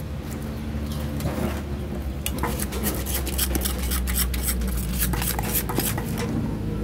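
A metal spoon and a wooden pestle working papaya-salad ingredients in a large clay mortar, scraping and stirring. From about two seconds in until near the end there is a quick run of clinks and taps.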